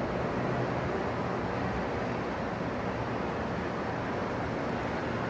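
Steady outdoor background noise, an even hiss and rumble without distinct events.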